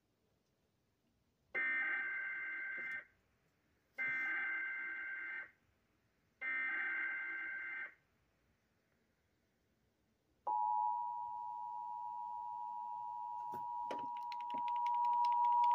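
Emergency Alert System (SAME) header: three short bursts of warbling digital data tones, evenly spaced. They are followed a few seconds later by a steady alert attention tone, which starts sharply and holds one pitch, with crackling clicks joining it near the end. This marks the start of a new severe thunderstorm warning.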